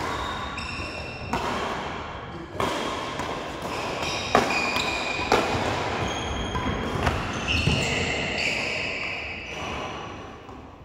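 Badminton rally: sharp racket strikes on the shuttlecock about once a second, mixed with short high squeaks of shoes on the court floor.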